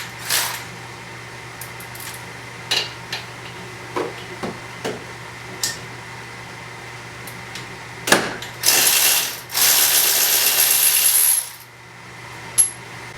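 Socket ratchet working a spark plug loose from a Honda GCV170 mower engine: scattered clicks and knocks, then about three seconds of rapid, continuous ratchet clicking starting about eight seconds in.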